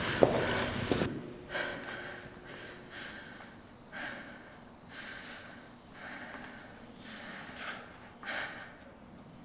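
A person breathing heavily: a louder breath in the first second, then quieter breaths about once a second.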